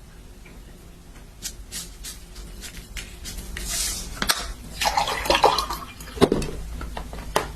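Dishes and utensils handled with small clicks and knocks, a brief pour or splash of liquid about four seconds in, then a burst of clattering a second later.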